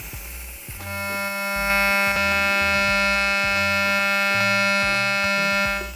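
Pulsed TIG welding arc on stainless steel, set to a 200 Hz high-speed pulse, giving a steady electric buzz. The buzz starts about a second in, gets louder shortly after and cuts off sharply just before the end when the arc is shut off.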